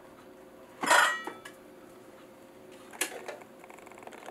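Clatter of a coffee grinder's grounds container being handled and taken off the burr grinder: one sharp clatter with a brief ring about a second in, then a single click about three seconds in.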